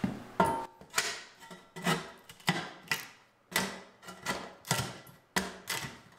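Steel shovel blade jabbed again and again along the foot of a wall, striking and prying up carpet tack strips on a plywood subfloor. Sharp metallic clanks come about twice a second, each with a short ring.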